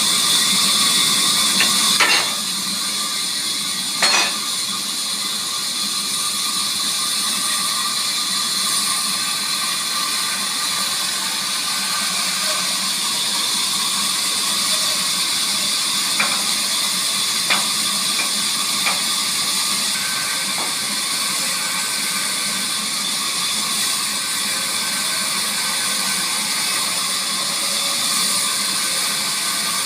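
Sawmill machinery running steadily with a high hiss and a low hum, with a couple of sharp knocks a few seconds in and fainter clicks later.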